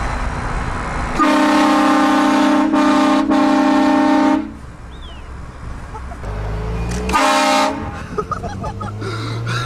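Train horn blasting a multi-tone chord: a long blast of about three seconds, broken twice for an instant, then a second short blast a few seconds later.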